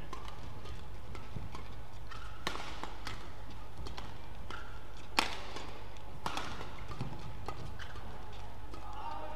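Badminton rackets striking a shuttlecock in a rally, several sharp cracks at uneven intervals, the loudest about five seconds in, over a steady low hum.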